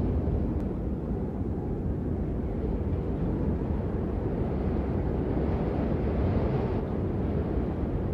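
Wind rumbling on the microphone: a steady low noise with no distinct tones.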